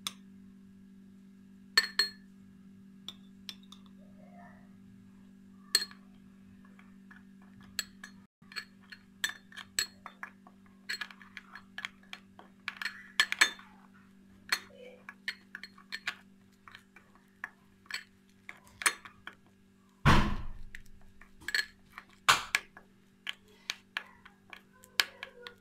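Metal spoon clinking and scraping against a cut-glass bowl while stirring yogurt into ground rose petals: irregular clinks throughout, with a louder knock about twenty seconds in. A steady low hum runs underneath.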